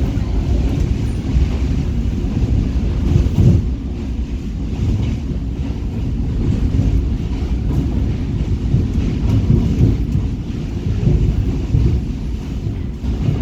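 Passenger train running, heard from inside a carriage: a steady, loud low rumble of wheels on the rails, with some wind on the microphone.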